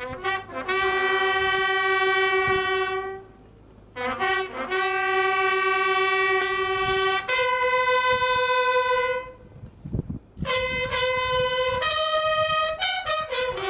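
A solo bugle sounding a slow ceremonial call: long held notes separated by brief pauses, with a run of shorter notes near the end.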